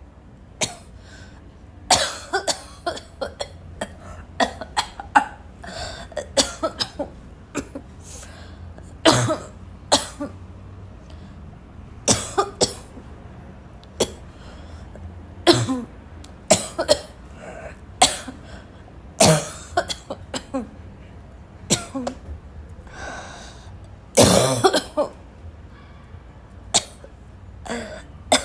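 A person in a coughing fit: harsh, barking coughs, short and sharp, coming in clusters of several at a time again and again.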